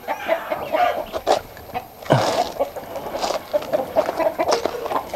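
A flock of chickens clucking while feeding on scattered corn: many short, overlapping calls.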